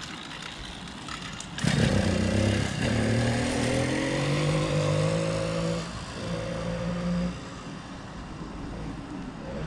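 100cc two-stroke bicycle engine firing about one and a half seconds in and running with a rising pitch for about four seconds, dipping briefly, running on for about another second, then dropping away.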